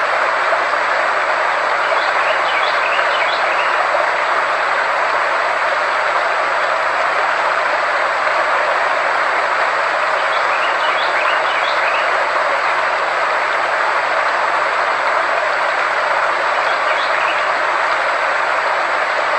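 Frequency-therapy sound track: a steady, even hiss with a low hum and a thin high tone held under it. Small clusters of faint chirps come about every seven to eight seconds.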